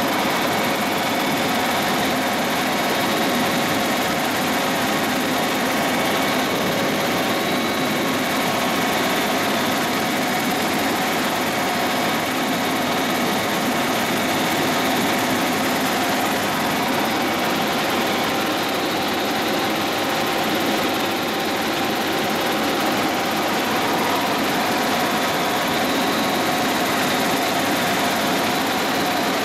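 Helicopter in level flight heard from inside the cockpit: a steady, unbroken engine and rotor noise with a few faint constant whining tones over it.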